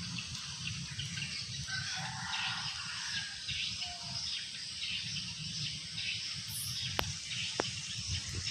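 A bird calling about two to three seconds in, over a steady low rumble and hiss, with a few sharp clicks near the end.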